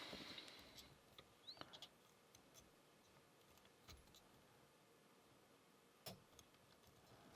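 Near silence with faint clicks and scratches of a lock pick and tension tool working the pin stack of a Burg Wächter Karat padlock, and one slightly sharper click about six seconds in.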